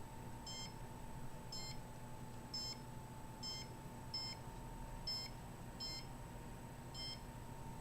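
Handheld microwave-radiation meter giving short, high beeps about once a second, slightly uneven in spacing, as it registers readings over a faint steady hum.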